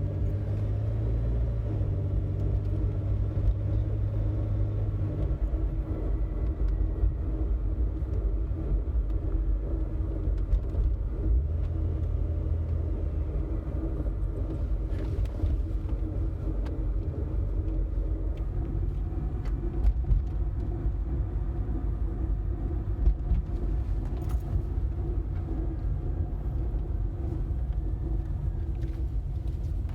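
Inside a 2000 Jeep Cherokee XJ on the move: a steady low rumble and drone from the road and drivetrain. It carries an odd noise that the owner has not traced: new wheel hub assemblies, rotors and brake pads did not change it, and tapping the brakes does not change it.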